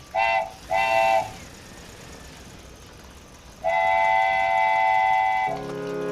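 Train horn toots: two short blasts, then one long blast about three and a half seconds in. A lower, deeper horn chord takes over near the end.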